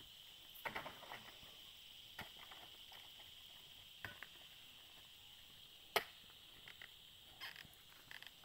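Faint scattered knocks and thuds of heavy oil palm fruit bunches being handled and tossed onto a trailer load, with one sharp click about six seconds in, over a steady high-pitched background hum.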